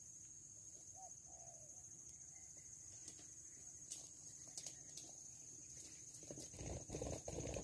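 Steady high-pitched insect trilling, typical of crickets, with a few faint scattered clicks. Near the end comes a burst of close rustling noise, the loudest sound in the stretch.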